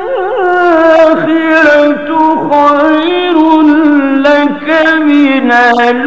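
A man's voice chanting Quranic recitation in long, ornamented melodic phrases, the pitch winding up and down and sliding gradually lower toward the end.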